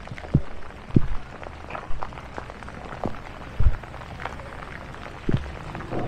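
Heavy rain falling steadily, with irregular dull thumps close to the microphone from drops striking the rain-jacket sleeve held over the camera.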